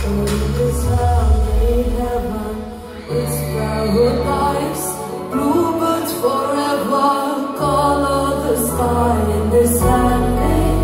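Live pop concert music heard from the audience: a woman singing into a microphone over a band or backing track with heavy bass. The deep bass drops out for a couple of seconds in the middle, then returns.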